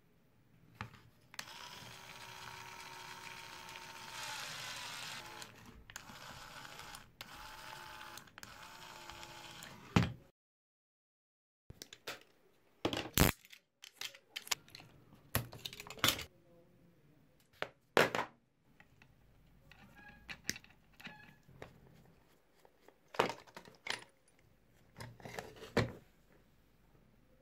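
A steady noise with a faint wavering tone for about nine seconds, then, after a brief cut to silence, scattered sharp clicks and knocks from handling the plastic parts, Ni-Cd cell pack and planetary gearbox of an opened cordless screwdriver.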